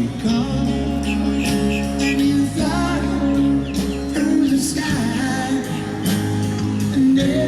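A song with singing, played as music over the beach footage.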